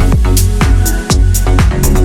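Background electronic dance music with a heavy bass line and a steady beat.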